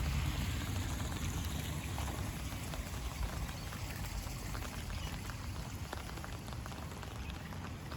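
Steady rain falling, with many small drops ticking, and a low rumble that is strongest at the start and then eases.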